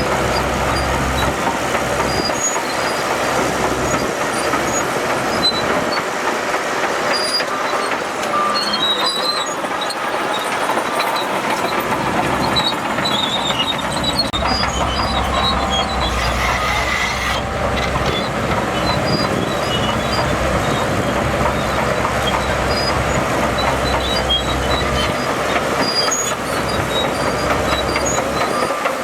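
Shantui DH17C2 crawler bulldozer at work: its diesel engine running under the metallic clanking and squeaking of its steel tracks. The low engine rumble drops back between about 2 and 12 seconds in, then returns.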